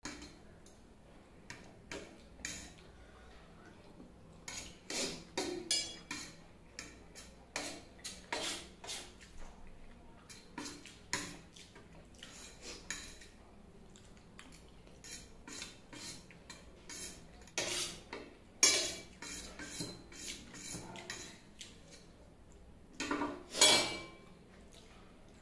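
Metal fork scraping and clinking on a stainless steel plate while noodles are gathered up, in a string of short sharp clicks and scrapes. The loudest clatter comes near the end, as the fork is laid down on the plate.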